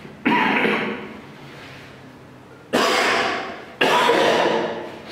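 A person coughing three times: one loud cough just after the start, then two more about a second apart near the end.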